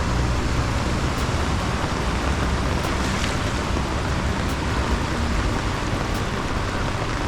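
Steady noise of heavy rain and flowing floodwater, with a low rumble underneath.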